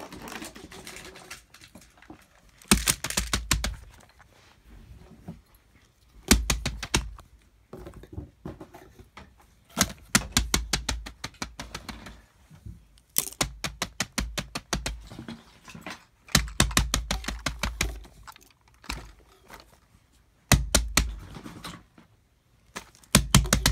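Silicone pop-it fidget toys being pressed, giving quick runs of sharp clicking pops in bursts of about a second, every few seconds.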